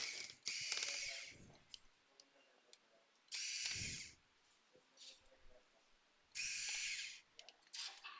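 Small electric screwdriver backing out the screws of a Dell Latitude 7280 laptop's bottom cover, in four short whirring bursts of under a second each, with small clicks between them.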